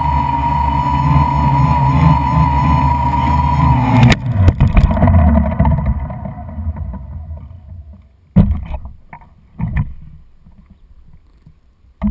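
Quadcopter motors and propellers buzzing steadily with a wavering whine, heard from the drone's own camera. About four seconds in, the buzz stops abruptly with a clatter as the drone comes down in dry grass, followed by a fading rumble and a few scattered knocks.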